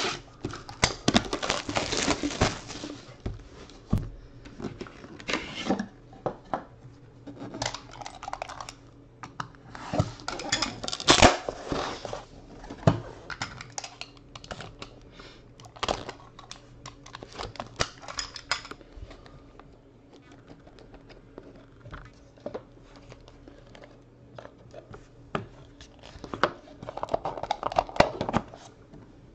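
Shrink wrap being cut and torn off a Panini National Treasures baseball card box, then the box being opened and its inner case and cards handled. Crinkling plastic and scraping, tapping cardboard come in irregular bursts, loudest about eleven seconds in.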